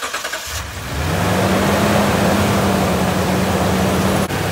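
Toyota Tundra engine cranking on the starter for a moment, then catching within about a second and running at a steady fast idle. It starts right up, the no-start cured by a new coolant temperature sensor.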